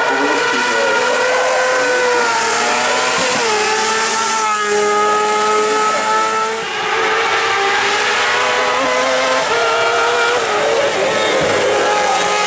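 Kart-cross racer's motorcycle engine running hard at high revs. Its pitch climbs steadily through each gear and drops at the upshifts, a few seconds apart.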